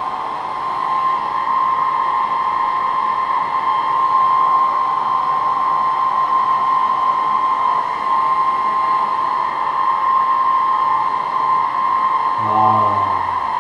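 Wall-mounted hair dryer running steadily: a rush of blown air under a constant high whine. Near the end a brief low hum joins it.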